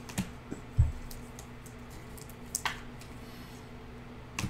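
Clear plastic card sleeves and top loaders being handled: a few light clicks and plastic rustles, with one soft thump about a second in, over a faint steady low hum.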